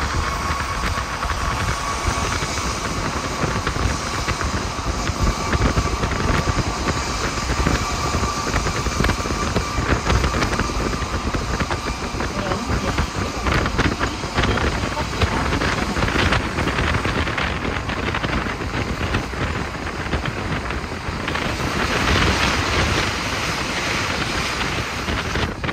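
Cabin sound of an Alstom NS-16 rubber-tyred metro train in motion: a steady rumble of running gear and tyres, with a thin whine that fades out about halfway through.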